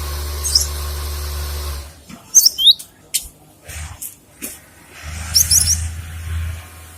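Gelatik batu (cinereous tit) calling: two short bursts of sharp, high chirps that fall in pitch, about three seconds apart, with a few clicks between them. A low steady rumble runs under the first two seconds and comes back near the end.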